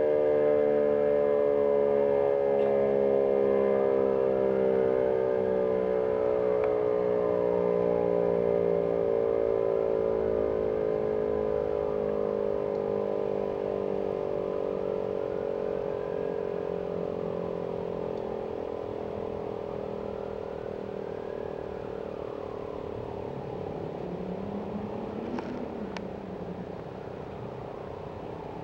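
Outdoor civil defense warning siren winding down after being shut off: its chord of several tones slides slowly lower in pitch and fades. A car passes about 25 seconds in.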